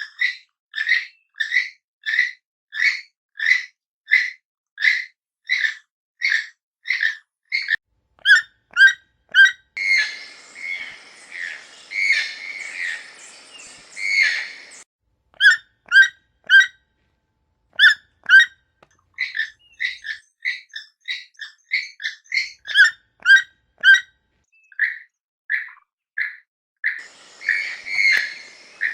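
Toucan calling in a long series of short, evenly repeated notes, about two a second. About ten seconds in, and again near the end, the calls crowd together and overlap with other calling in the background.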